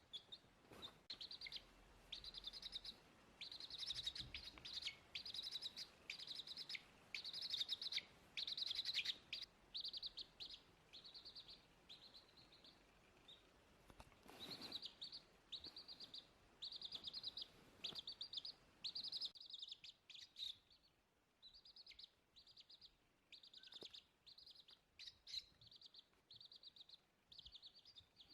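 A chick peeping over and over: short, high-pitched bursts of peeps, about one or two a second, with a few faint knocks among them.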